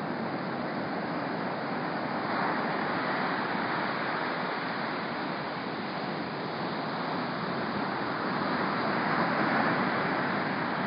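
Ocean surf breaking on the beach: a steady rush of waves that swells a little about two seconds in and again near the end.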